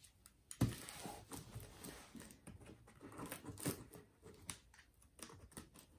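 Faint cutting and rustling as a box cutter slices the packing tape on a cardboard box, with scattered small clicks and knocks of the box being handled; the sharpest click comes about half a second in.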